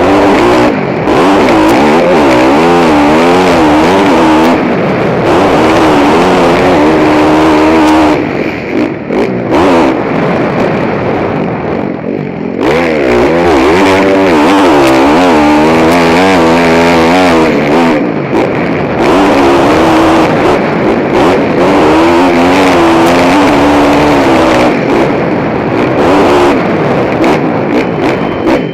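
KTM motocross bike engine, heard from the rider's helmet camera, revving hard up and down as the throttle is opened and closed around the track. The throttle backs off for a few seconds about a third of the way through, then the engine revs hard again.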